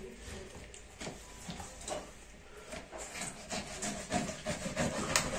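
Kitchen utensil work during food preparation: irregular light taps and scrapes, a few a second, getting busier and louder toward the end.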